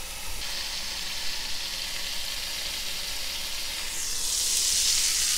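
Bacon-wrapped burger patty sizzling on the hot plates of a Cinder Grill contact grill set to sear. The sizzle is muffled under the closed lid, then grows louder and brighter about four seconds in as the lid is lifted.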